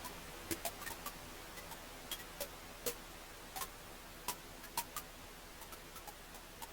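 Wood fire crackling: irregular sharp snaps and pops over a steady soft hiss.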